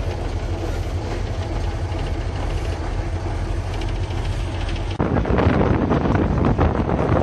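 YaMZ-236M2 V6 diesel engine of a MAZ-5551 truck idling steadily, with a low, even rumble. About five seconds in the sound turns suddenly louder and rougher.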